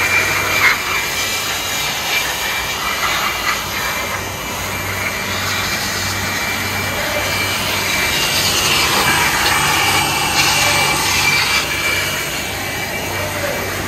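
Handheld electric air blower running steadily, blasting air over a freshly washed engine bay to dry it.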